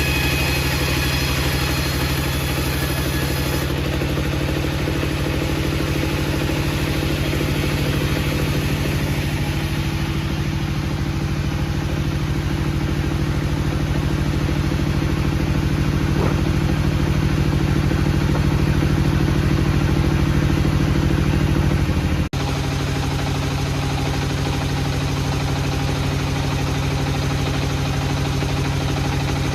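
Engine of heavy wood-processing machinery running steadily at a constant speed. It cuts off abruptly about 22 seconds in and a similar steady engine sound picks up straight away.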